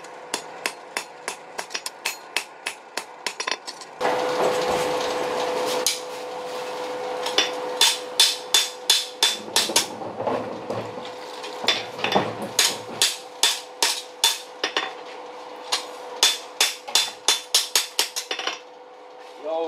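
A hand hammer strikes hot leaf-spring steel on an anvil in quick, even blows, about three to four a second. About four seconds in the blows stop for a couple of seconds of loud rushing noise, then resume.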